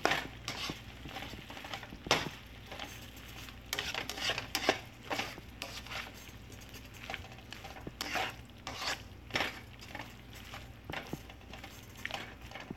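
A utensil stirring and tossing chicken and vegetables in a nonstick wok, with irregular clacks and scrapes against the pan.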